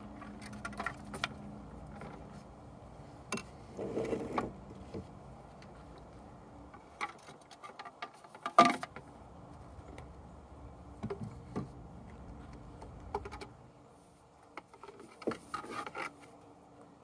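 Handling noise from wooden alphorn sections: scattered knocks, clicks and rubbing as the pieces are drawn out of a padded bag and set down on a wooden table, with one sharper knock about halfway through.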